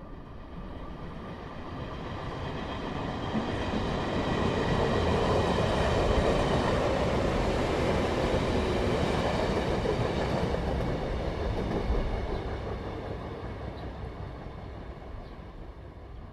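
A train passing: a broad running noise with faint steady high tones that swells over several seconds, holds, then fades away.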